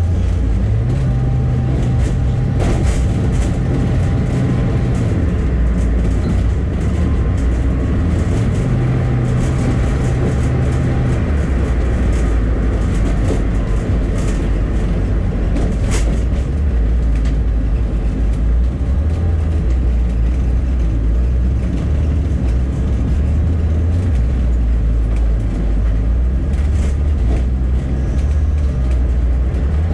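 A bus's engine and road noise as it drives along: a loud, steady low drone that steps up and down in pitch as it changes speed, with a couple of sharp clicks.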